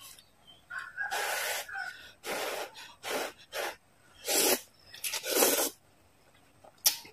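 Noodles being slurped into the mouth in a run of short, hissing sucks, about seven in all with short pauses between, the loudest two in the middle.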